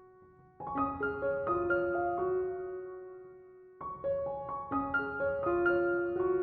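Background music: gentle piano, phrases of notes that ring and fade, a new phrase starting about half a second in and another near the four-second mark.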